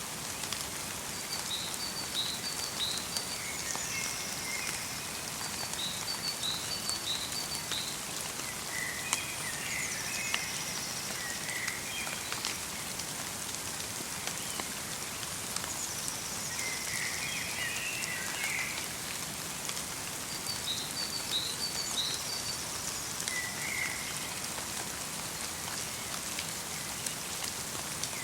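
Light rain falling steadily in a forest, with fine drops pattering, while small birds call in short high chirps and trills every few seconds.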